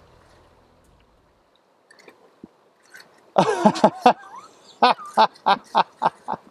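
A person's excited cry about three seconds in, followed by a run of short, rhythmic laughs while a fish is reeled in.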